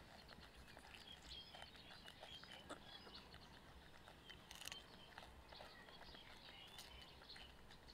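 Quiet, faint clicking and crunching of two baby monkeys biting and chewing pieces of cucumber.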